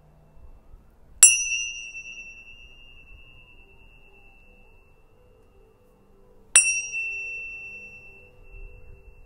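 Two loud dings of a struck tuning fork, about a second in and again about six and a half seconds in. Each is a sharp strike with a brief bright shimmer that settles into one clear high tone, fading slowly over several seconds. A fainter tail of the same tone from the previous ding is still ringing at the start.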